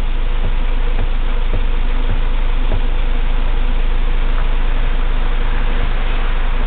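A steady machine-like rumble with a constant hiss over it, unchanging in level, with faint regular ticks in the first few seconds.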